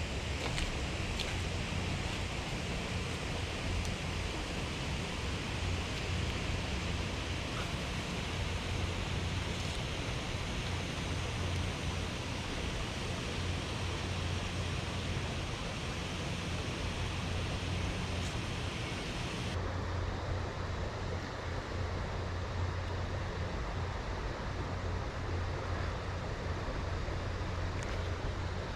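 Steady rush of flowing river water, with a low rumble underneath. The upper hiss drops away sharply about two-thirds of the way through.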